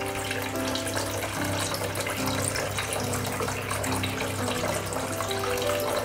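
Small tabletop fountain running: water pouring in a steady thin stream from the spout and splashing into its pebble-filled basin, over soft background music with long held notes.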